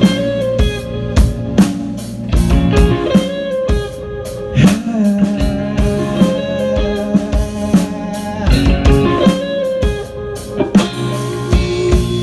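Rock band playing an instrumental passage between vocal lines: guitar over a steady drum-kit beat.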